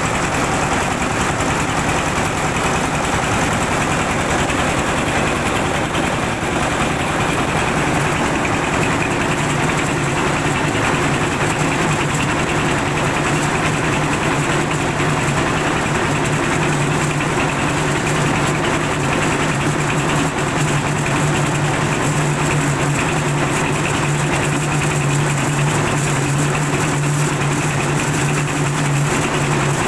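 Engine-driven mobile rice mill running steadily while it husks paddy fed from its hopper: a dense, even machine drone with a low hum that grows stronger partway through.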